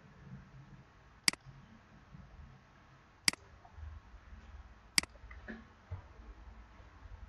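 Three sharp computer mouse clicks, spaced roughly two seconds apart, over a faint low hum.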